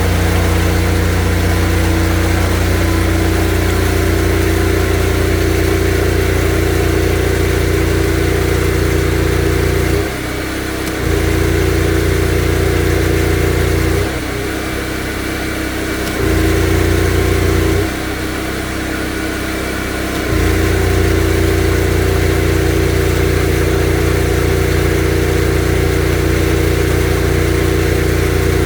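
Engine of a high-pressure drain jetter running steadily. Its low note drops and comes back three times, about 10, 14 and 18 seconds in.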